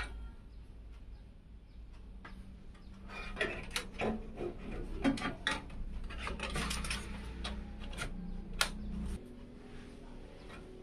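Hands handling a steel PC case and its mesh dust filter: scattered clicks, taps and rubbing, thickest in the middle, over a low steady hum that stops about nine seconds in.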